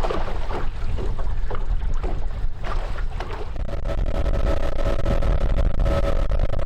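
Sea Pro boat's outboard motor running underway, with wind and rushing water on the microphone. About halfway through, a steady engine whine comes in and holds.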